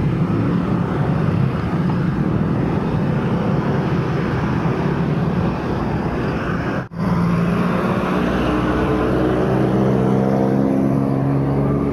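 Steady city traffic noise recorded from a moving bicycle, with motor vehicles running close by. The sound breaks off sharply for an instant about seven seconds in. After that, a nearby vehicle's engine hum rises slowly in pitch as it accelerates.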